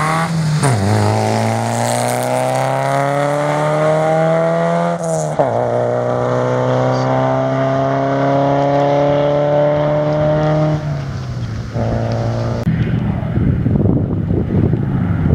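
Rally car engine at full throttle as the car passes and pulls away up the stage. The note climbs steadily, drops at a gear change about five seconds in, climbs again and shifts once more about eleven seconds in as it fades. Near the end, wind buffeting on the microphone takes over.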